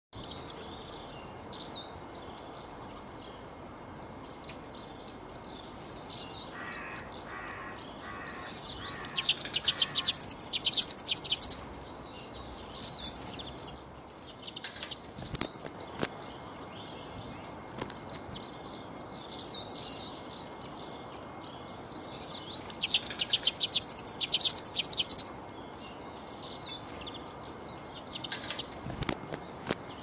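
Small songbirds chirping and twittering over a steady background hiss. Two loud bursts of fast, rattling trills come about nine seconds in and again about twenty-three seconds in.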